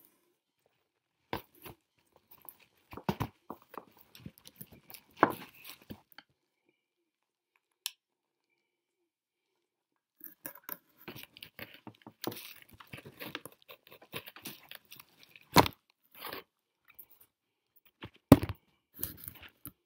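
Close handling noise from briar tobacco pipes being picked up and moved around: scattered clicks, rustles and small scrapes in two bursts with a quiet spell between, and two sharp knocks near the end, the last the loudest.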